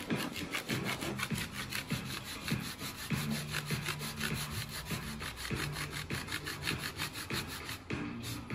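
Fine-toothed hand saw cutting through plywood in quick, even back-and-forth strokes.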